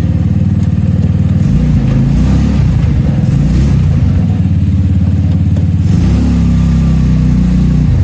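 GY6 150cc single-cylinder four-stroke go-kart engine running, its note shifting about a second and a half in and again around six seconds.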